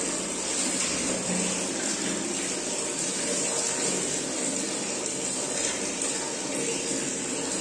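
Steady running water from a tap pouring into a plastic tub, with water splashing as it is poured and rubbed over a wet puppy on a tiled floor.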